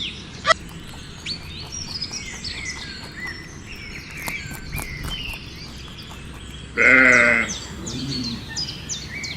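Many faint, high bird chirps, then a loud bleat about seven seconds in, followed by a shorter, fainter bleat.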